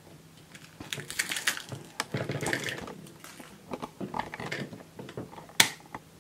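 Hands working a hard plastic LOL Surprise Under Wraps toy capsule: scattered clicks and rustling as its parts are turned and pressed, busiest in the first half, with one sharp click near the end.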